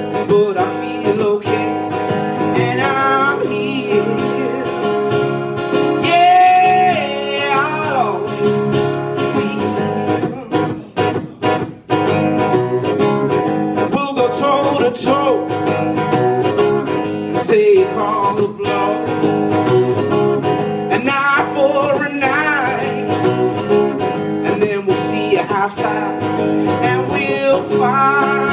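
Live acoustic blues: a steel-string acoustic guitar strummed steadily, with a man's voice singing held, wavering notes that carry no clear words. About ten to twelve seconds in, the strumming briefly thins to a few sharp percussive strokes before the full strum returns.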